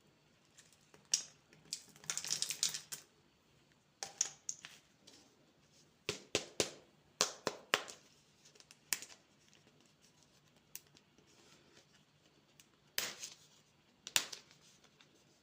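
Candy packaging handled by hand: a stretch of plastic wrapper crinkling about two seconds in, then a series of sharp clicks and taps, some in quick clusters.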